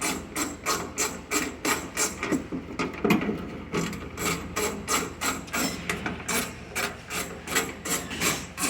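Hand ratchet wrench being worked back and forth on a bolt, its pawl clicking steadily at about four clicks a second.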